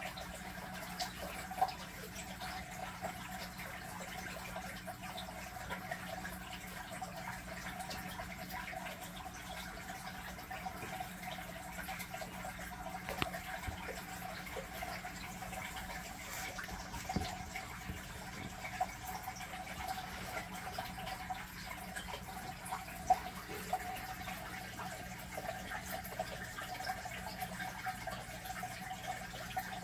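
Aquarium water pump or filter running: a steady trickle and wash of moving water with an even hum, broken by a few sharp clicks scattered through.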